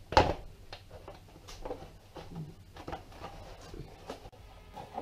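Plastic rear mudguard of a Suzuki GS550 being handled and pressed against the bike's frame: one sharp knock just after the start, then scattered lighter knocks and scrapes.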